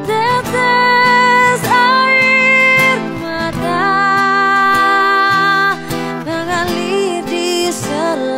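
A woman singing in Indonesian over a strummed acoustic guitar, in long held notes with a slight waver.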